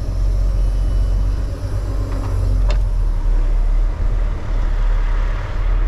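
Semi-truck diesel engine running at low speed, a steady low rumble heard from inside the cab as the tractor-trailer is manoeuvred back into a loading dock. One short click about two and a half seconds in.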